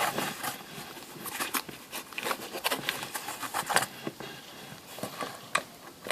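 Irregular taps, clicks and scraping rustles from a homemade toy vending machine being handled as a dime is fed into its coin slot.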